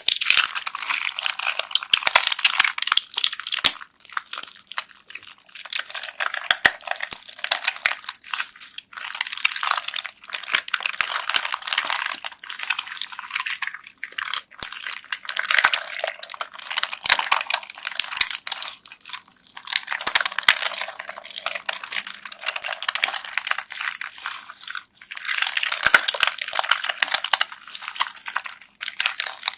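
Bead-filled slime being squeezed and pressed by hand, crackling with dense little clicks from the beads. It comes in bursts of a few seconds with short pauses between.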